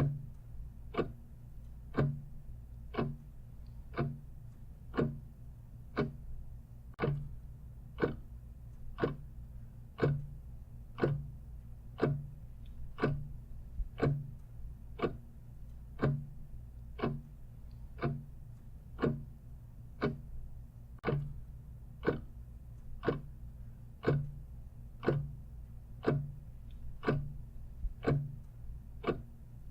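Clock ticking steadily, about two ticks a second in an alternating tick-tock, over a low steady hum.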